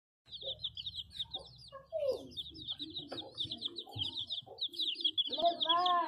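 A brood of chicks peeping rapidly and without pause, their short high chirps overlapping, with softer lower calls underneath and a louder drawn-out call near the end.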